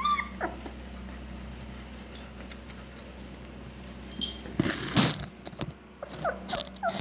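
Doberman puppies whimpering briefly, once at the start and again near the end. About five seconds in there is a short burst of clicks and scuffling over a low steady hum.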